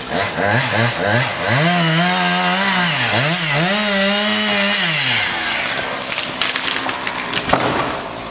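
Two-stroke chainsaw blipped a few times, then held at high revs cutting through the walnut trunk, dipping briefly about three seconds in and dying away after about five seconds. The tree then goes over, with a spell of cracking and crashing branches and one sharp loud crack near the end.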